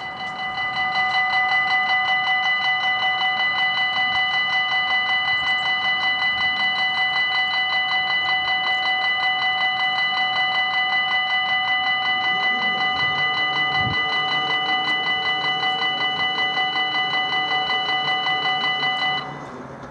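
Belgian level-crossing warning bell ringing loudly in rapid, even strokes, stopping abruptly near the end once the barriers are down. Partway through, a low hum joins in as the barrier arms are driven down.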